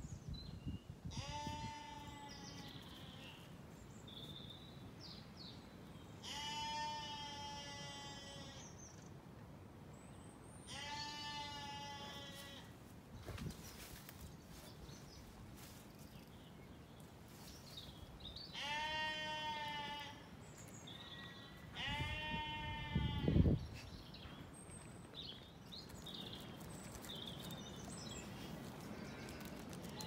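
Zwartbles sheep bleating: five long bleats several seconds apart. A low thump falls at the end of the fifth bleat.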